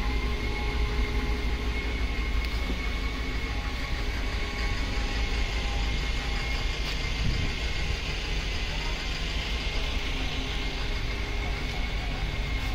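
A truck engine idling steadily, with a constant high whine over the low rumble.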